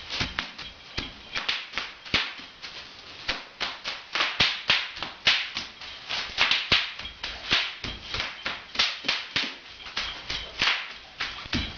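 Bubble wrap popping in quick, irregular succession, several sharp pops a second.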